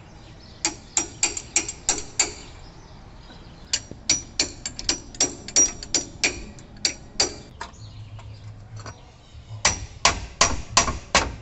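Hammer blows on metal at the bare rear wheel hub of a VW Kombi, its drum off and the splined axle end exposed: three runs of quick, ringing strikes, several a second, with short pauses between.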